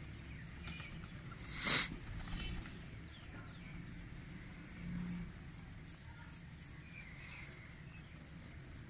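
A flock of pigeons feeding on a concrete roof: scattered light taps of beaks pecking, with one louder brief burst about two seconds in.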